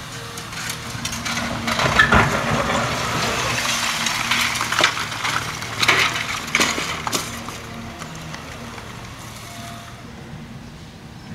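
Building demolition: crunching and breaking of concrete and debris, with several sharp cracks between about two and seven seconds in, over a steady machine engine hum. The crashing fades near the end.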